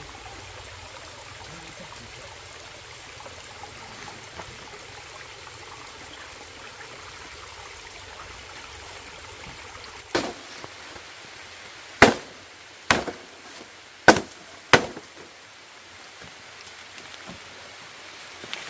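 Firewood being chopped with a blade: five sharp, irregularly spaced strikes in the second half, over a steady rush of running water.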